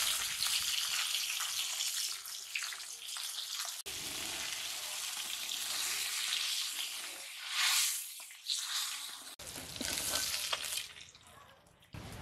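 Turmeric-coated carp pieces sizzling steadily as they fry in oil in an iron kadai, with a metal spatula turning them. The sizzle swells briefly about two-thirds of the way through and dies down near the end as the fish finishes frying.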